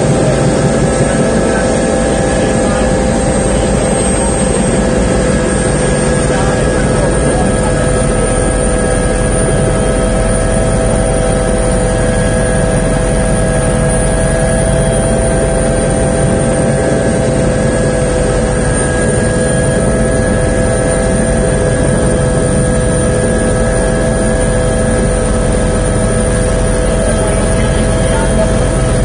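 Helicopter turbine and rotor heard from inside the cabin: a loud, steady whine of several tones over a fast, even low chop.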